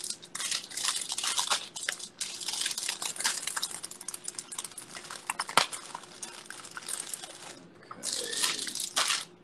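Paper and photos rustling and crinkling close to the phone's microphone as autographs are signed, with many small clicks and one sharp tap about five and a half seconds in.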